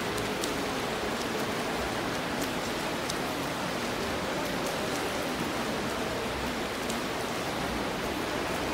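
Steady splashing and churning of water from several swimmers doing front crawl in an indoor pool, with faint scattered droplet ticks.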